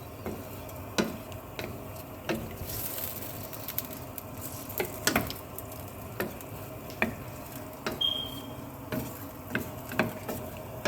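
A utensil stirring tomato sauce in a pan on the stove, knocking and scraping against the pan at irregular intervals over a steady low sizzle as the sauce cooks. A brief high squeak about eight seconds in.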